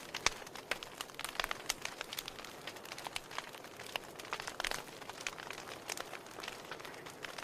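Wood fire crackling in a fireplace: irregular sharp pops and snaps over a soft steady hiss of burning.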